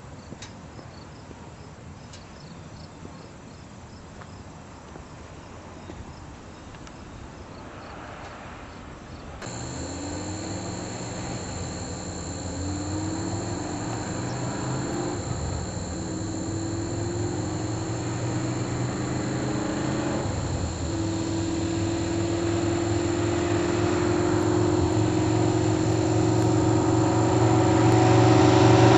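Crickets chirp faintly at first. About a third of the way in, a V8 engine of a 1961 Corvette drag car comes in suddenly and rises in pitch several times, then settles into a steadier note that grows steadily louder to the end.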